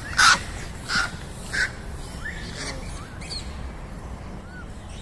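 Animal calls: three loud, harsh calls evenly spaced about two thirds of a second apart in the first two seconds, then a few faint, short rising squeaky calls.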